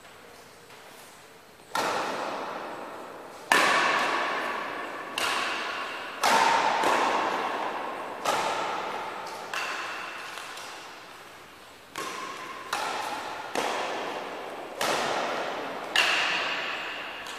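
Badminton rackets striking a shuttlecock in a rally: about eleven sharp hits, one every second or two, each ringing briefly and echoing off the walls of a large hall.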